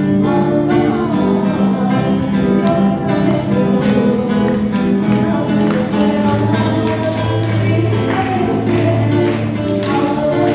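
Music with held notes over a steady beat.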